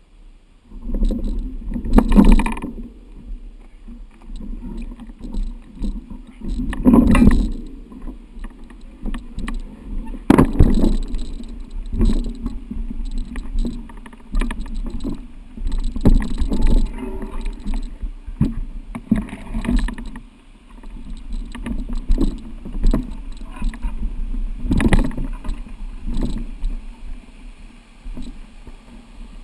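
Mountain bike ridden over a rough trail, giving irregular knocks, rattles and rumbling bumps, with louder jolts now and then.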